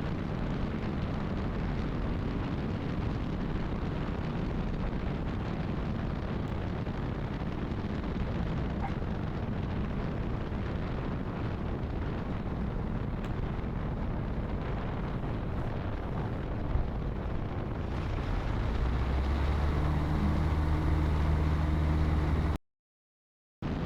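Light single-engine airplane's engine and rushing airflow heard from inside the cockpit, a steady drone. A single short thump comes about two thirds of the way through, then the engine note grows louder with a steady low hum, and the sound cuts off abruptly near the end.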